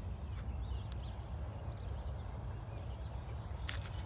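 Wind rumbling on the microphone with small birds chirping, and a short scraping noise near the end as the foam RC glider touches down on the grass.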